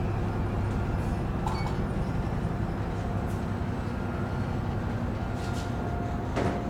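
Steady low drone of a car ferry's engines and machinery heard inside the passenger deck, with a faint click about a second and a half in and a light knock near the end.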